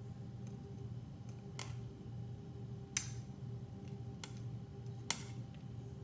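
Hot oil in a deep fryer popping sharply every second or so while battered shrimp and lobster tails fry, over a steady low hum.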